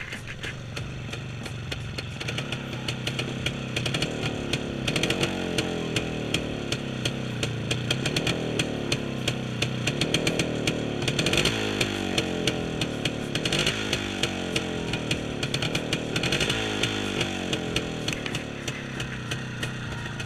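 1986 CZ 175/487 motorcycle's single-cylinder two-stroke engine running after a cold start, with the throttle blipped several times so the revs rise and fall.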